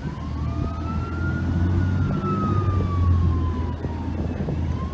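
Fire truck arriving with its siren on a slow wail, rising and then falling once over about four seconds, over the low rumble of its engine, which grows loudest around the middle as it comes close.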